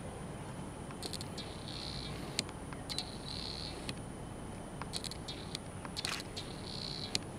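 Insects chirping in a few short, high bursts, with scattered sharp clicks over a steady background hiss.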